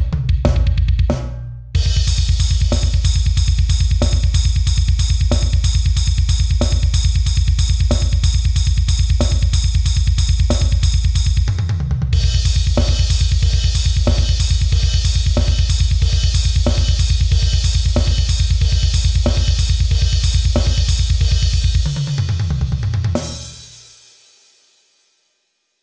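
Heavy metal drum kit playing fast, continuous double-bass-drum sextuplets under snare and cymbal hits, with steady crash and china cymbal hits joining about halfway through. Near the end a quick tom fill leads into a final crash that rings and fades out to silence.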